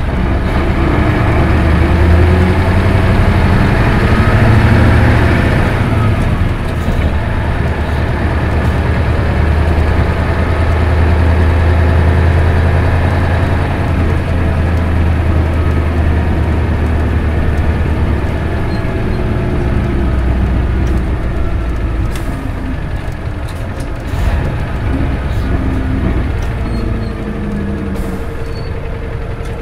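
A 1996 Isuzu Cubic KC-LV280N city bus with a manual gearbox, heard running on its route: the diesel engine pulls and eases off several times, with its pitch rising and falling. A short, sharp sound comes about 24 seconds in, and the engine settles lower and quieter toward the end.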